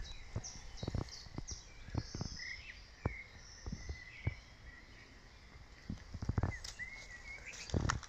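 Scattered crackles and rustles of steps in dry leaf litter and twigs, thinning out in the middle and picking up again near the end, with small birds chirping in the background.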